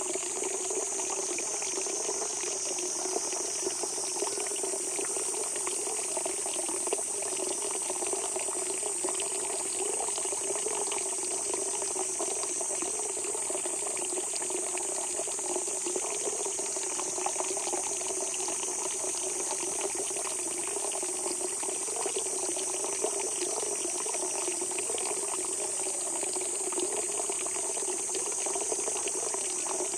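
Spring water gushing up out of the ground, a steady, unbroken murmur of bubbling water.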